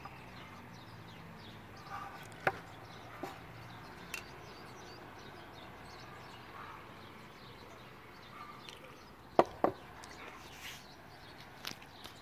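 Scattered knocks and taps of a phone and a spray can being handled on a wooden table, the loudest a pair of knocks in quick succession about nine seconds in.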